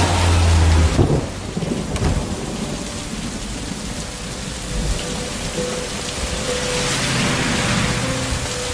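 Heavy rain pouring steadily, with a deep low rumble in the first second.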